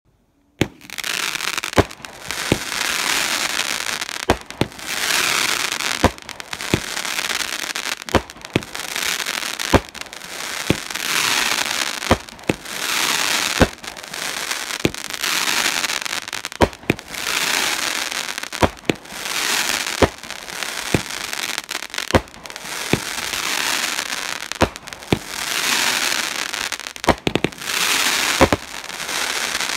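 Enigma Fireworks 'Elrond's Brightness' 16-shot 200g consumer cake firing in sequence, with the first shot about half a second in. Each shot gives a sharp pop followed by about a second of dense crackling from the bursting stars, repeating about every one and a half to two seconds.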